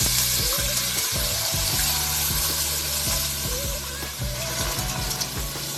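Basmati rice sizzling in hot oil in a pot, the sizzle slowly dying down.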